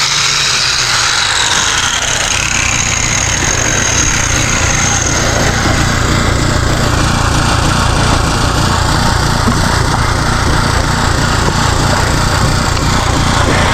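Small petrol generator running with a steady engine drone, with a higher whine that drifts down in pitch over the first several seconds.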